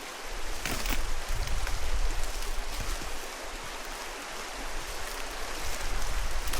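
Steady rushing water noise, from rain and a nearby river, with a low rumble of wind gusting on the microphone that comes and goes.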